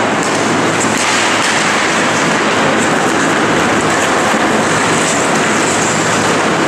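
Steady din of an ice hockey game in an indoor rink: skates scraping and carving the ice, with a few faint knocks of sticks and puck, over a low hum.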